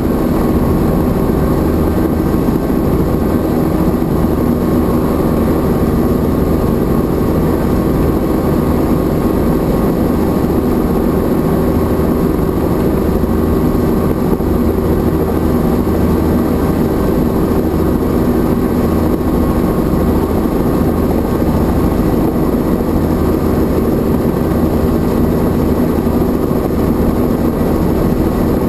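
Helicopter in flight heard from inside the cabin: a loud, steady drone of engine and rotor with a low rumble and a few held tones, unchanging throughout.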